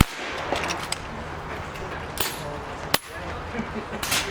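Precharged pneumatic (PCP) air rifles firing along a benchrest line: several sharp cracks a second or so apart, the loudest at the very start and another about three seconds in.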